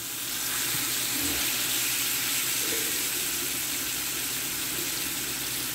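Strip steaks sizzling steadily in hot oil in a sauté pan, just turned over.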